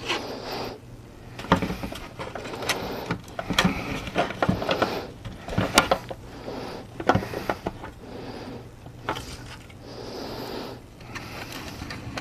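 Hand-work handling noises: irregular clicks, knocks and short scraping sounds as parts are handled on a workbench, over a steady low hum.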